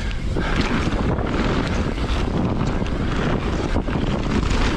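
Mountain bike (a 2020 Rocky Mountain Instinct BC) riding down a rough trail: steady wind noise on the camera's microphone over the rush of the tyres on dirt. Frequent short knocks and rattles come from the bike as it rides over the rough ground.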